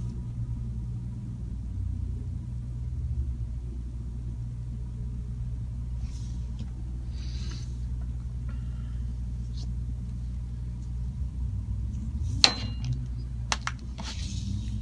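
A steady low hum like a fan or other room machinery. Over it come a few soft rustles, a sharp click about twelve seconds in, and a rustle near the end as the paper page is slid and turned on the desk.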